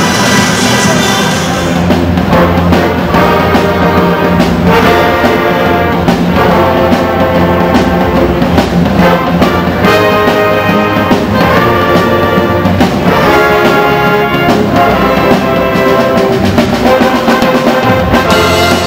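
Pep band playing a loud, rhythmic tune: trumpets and saxophones carrying the melody over sousaphones, a drum kit and an electric bass.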